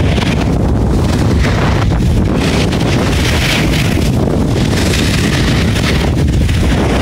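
Loud, steady wind rush buffeting a phone microphone as it moves downhill at speed on a ski slope, with swells of hiss rising and falling over a low rumble.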